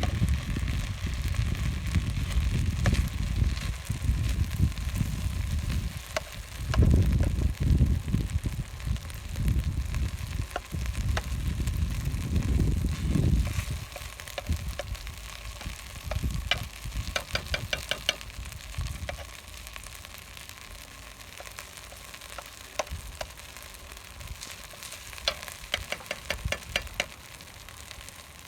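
Food frying and sizzling in a pan, with stirring. A low rumble runs under the first half and then stops, and two quick runs of clicks come later on.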